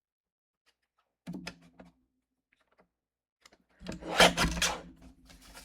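Cardstock being set on a paper trimmer and cut. A few light clicks come about a second in. Near the end there is a louder, brief scraping rasp as the blade is drawn through the card.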